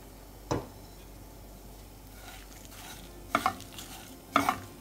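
A spatula stirring and scraping roasted grated coconut, shallots and dried red chillies in a pan over a faint sizzle. There is a sharp click about half a second in, then scraping strokes from about three seconds in.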